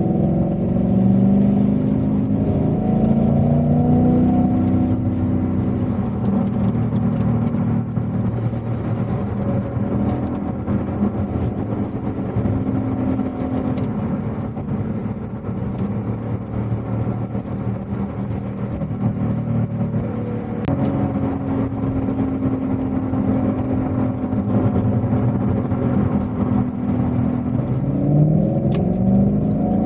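Ford Mustang engine pulling hard, its pitch rising in steps through the gears over the first few seconds, then holding steady at a cruise, and climbing quickly again near the end.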